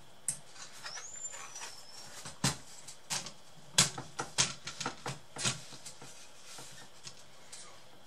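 Handling of an opened plastic laptop chassis on a work mat: a string of irregular plastic clicks and knocks, loudest in the middle, with a brief high squeak about a second in.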